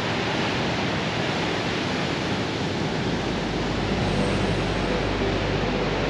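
Ocean surf washing against the shore, a steady loud rush of breaking waves.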